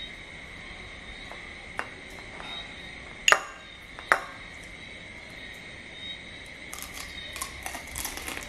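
Two sharp clinks about a second apart as crab meat is dipped against a small ceramic bowl of black pepper sauce. Soft crackling of eating follows near the end, over a steady high whine.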